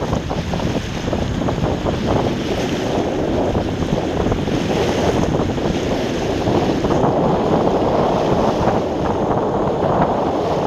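Steady wind noise buffeting the microphone on a sailing dinghy, with waves washing around the boat.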